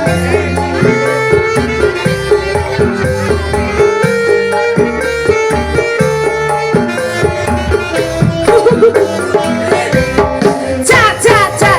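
Dangdut-style stage music: a hand-drum beat under a held, wavering melody line.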